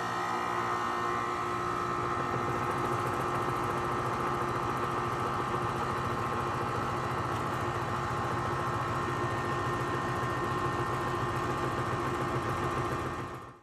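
Carrier 4-ton air-conditioner condensing unit running steadily just after start-up on a newly fitted hard start kit: a constant mechanical hum with steady tones from the compressor and condenser fan.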